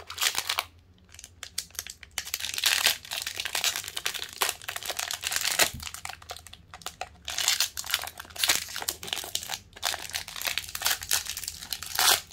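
Clear plastic lollipop wrapper crinkling and crackling in irregular bursts as it is pulled and peeled off the hard candy, with the loudest crackle near the end.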